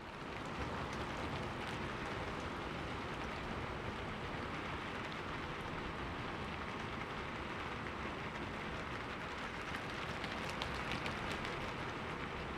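Steady rain falling on a surface, an even patter with scattered individual drop ticks, fading in at the start.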